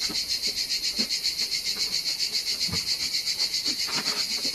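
A loud insect chorus chirping in a rapid, even pulse throughout, with a few light knocks and clicks as the spray mop's aluminium handle sections are fitted together.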